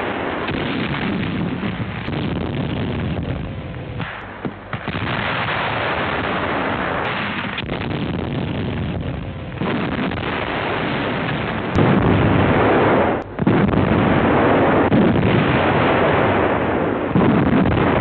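German World War II artillery firing, with shell bursts: a dense, continuous run of booms and rumbling. It gets louder about twelve seconds in.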